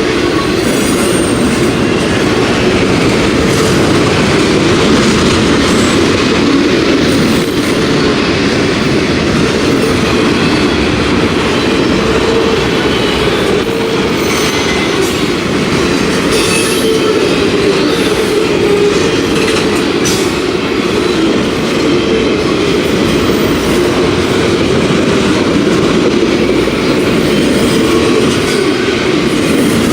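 Freight train of autorack cars rolling past, a steady, loud noise of steel wheels on rail with clickety-clack over the rail joints.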